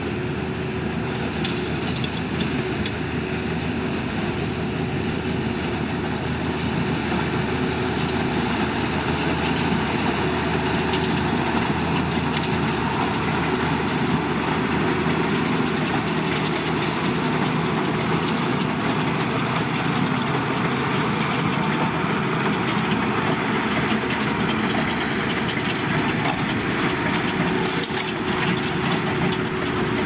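Deutz-Fahr Agrotron tractor engine running steadily under load while it drives a Massey Ferguson 185 large square baler through barley straw, the baler's machinery running with it in one continuous steady hum.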